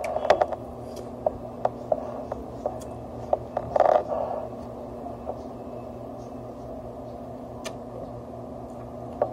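Close-up chewing of crisp unripe mango slices, with scattered wet clicks and crunches of the mouth, and wooden chopsticks scraping and tapping on the plate about four seconds in.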